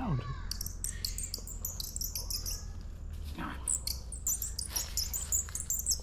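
Rapid, high-pitched, bird-like chirps and squeaks, sparse at first and growing denser from about four seconds in, an agitated, scolding sound.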